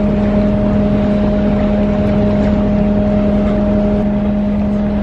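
Canal tour boat's engine running with a steady, unbroken hum, heard from on board.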